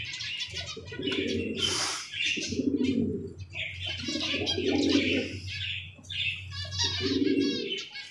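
Domestic pigeons cooing over and over, about one coo a second from several birds, with quick runs of clicks from beaks pecking grain off a concrete floor.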